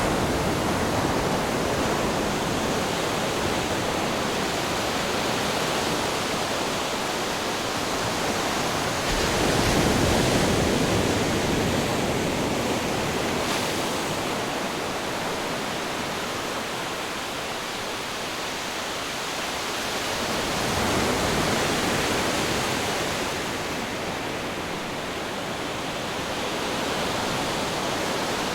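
Ocean waves breaking on a beach with wind, a continuous rushing that swells louder about ten seconds in and again around twenty-one seconds.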